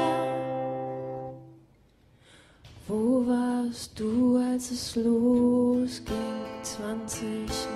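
A woman singing to an acoustic guitar. A held note fades away to a brief near-silent pause about two seconds in, then the voice and strummed guitar come back in.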